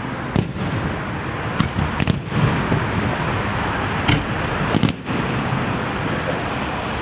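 Fireworks going off: sharp bangs every second or so, five in quick succession, over a continuous dense noise of further bursts.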